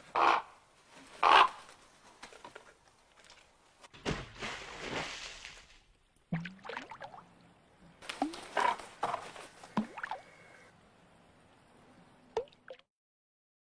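Two loud, harsh animal calls about a second apart, followed by softer scattered knocks and rustling.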